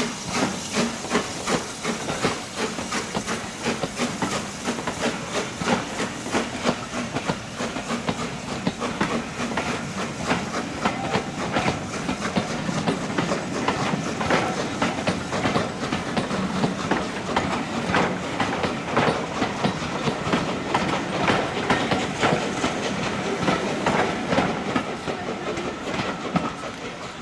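Steam-hauled train rolling past, its wheels clicking rapidly over the rail joints under a steady hiss of steam. It fades near the end.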